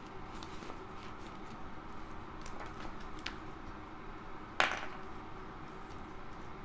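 Paper bills and clear plastic binder pockets being handled: faint rustling and light ticks, with one louder, sharp crackle of plastic a little past halfway through.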